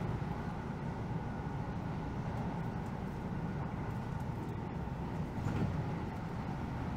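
Steady running noise of a Keihan Rakuraku limited express train, heard from inside the carriage: an even, low rumble of the train travelling at speed along the track.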